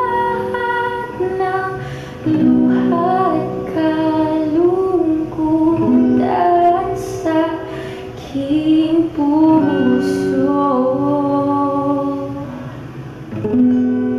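Background music: a woman singing over acoustic guitar.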